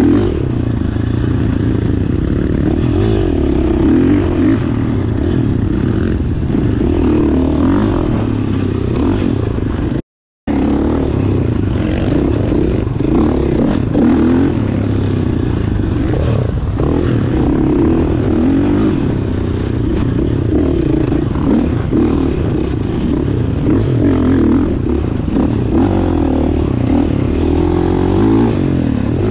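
GasGas dirt bike engine running under throttle on a dirt trail, its pitch rising and falling as the rider works the throttle. The sound cuts out completely for about half a second some ten seconds in.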